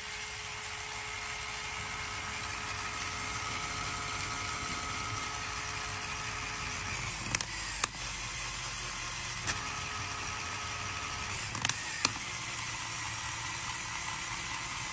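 LEGO Technic gearbox driven by a small LEGO electric motor, whirring steadily with the gears meshing. A few sharp clicks come between about seven and twelve seconds in as the shift lever is worked, and the whine changes pitch as the gears are shifted.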